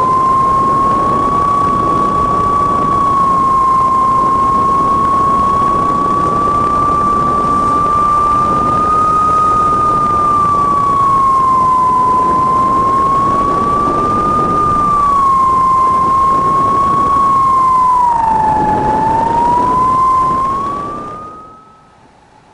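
RC plane's motor and propeller running, heard from a camera on board: a steady whine whose pitch wavers slowly up and down, over a rush of wind noise. It fades out near the end.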